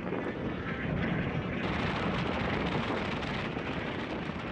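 Storm wind blowing hard against the microphone, a steady heavy rumble, turning hissier about one and a half seconds in.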